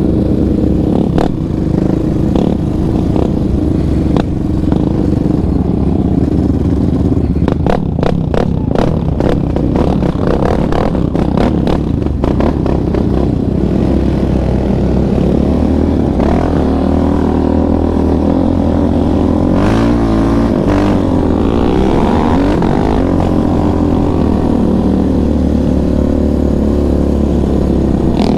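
Yamaha Raptor 700R sport quad's single-cylinder four-stroke engine, fitted with an aftermarket exhaust, running under throttle as it is ridden along a dirt trail, its pitch rising and falling with the throttle. A run of sharp knocks and rattles comes between about a quarter and under halfway in.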